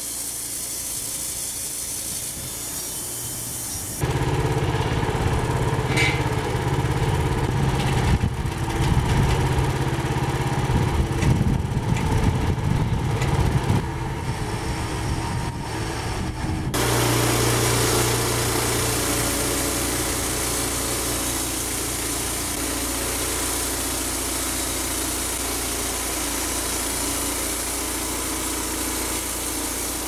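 Small petrol engine of a homemade band sawmill running. The sound changes abruptly about four seconds in and again just past halfway; between those two points it is louder and rougher.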